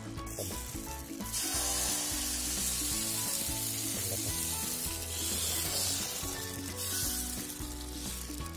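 Vellayappam rice batter sizzling as it is poured from a ladle onto a hot oiled pan, starting about a second in and fading near the end, over background music.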